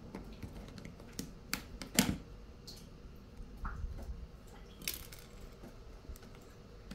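Scattered small clicks and taps of a screwdriver against a steam iron's plastic housing as screws are undone and the plastic parts are eased apart, the loudest click about two seconds in.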